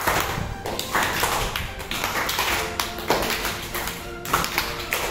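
A class of children clapping their hands together in a steady rhythm over the instrumental accompaniment of a song, with no singing.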